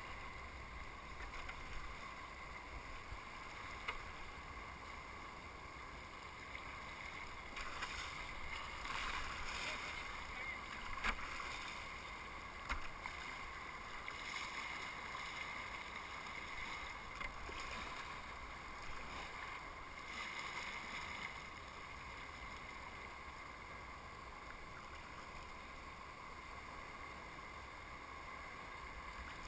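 Steady rush of turbulent whitewater rapids around a kayak, with a few short knocks and splashes, the sharpest about eleven and thirteen seconds in.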